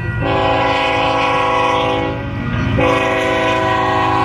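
Union Pacific diesel freight locomotive's multi-chime air horn sounding for a road grade crossing: a long blast, a short break about two seconds in, then a second long blast, over the low rumble of the approaching train.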